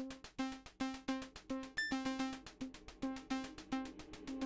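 Background music: a steady run of short, quickly fading pitched notes, about two or three a second.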